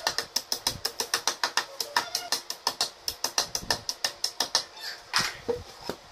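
A hammer tapping wooden dowels into the edge holes of a particleboard furniture panel: quick, even light taps, about six a second, for some four and a half seconds. Near the end there are a couple of separate knocks.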